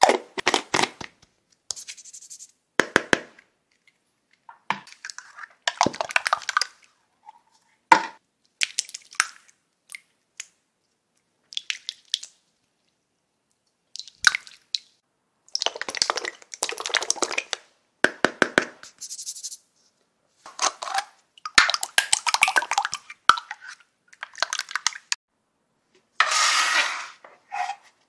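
Small clear plastic slime jars being handled, clicking and tapping, and sticky slime being pulled from a jar with wet crackly squelches. These come in short bursts with brief silences between them, and there is a longer, noisier stretch near the end.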